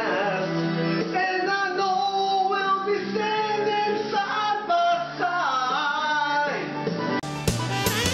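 A man singing a tune over guitar-backed music. About seven seconds in, it cuts abruptly to a different, brighter music track.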